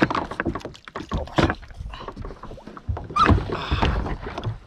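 A person climbing into and settling on a Galaxy Cruz Pro Angler fishing kayak at the water's edge: a run of knocks, thumps and scrapes on the plastic hull, heaviest from about three seconds in.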